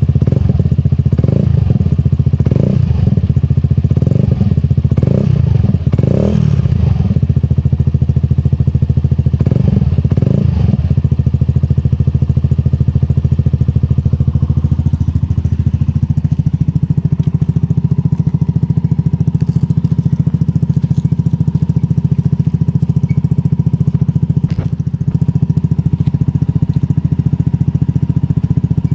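Honda S-Wing 125 scooter's single-cylinder four-stroke engine running through a Turbo Kits exhaust with the baffle removed. A quick run of short throttle blips over the first ten seconds or so, then a steady idle.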